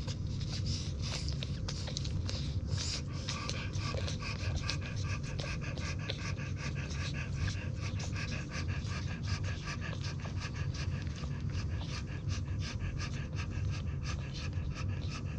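French Bulldog mother panting rapidly and evenly, about four breaths a second, while her newborn litter nurses.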